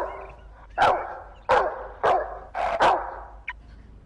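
Dog barking through a bark amplifier, a small megaphone-like horn fitted on its head: about six loud barks in quick succession over the first three seconds, then it goes quiet.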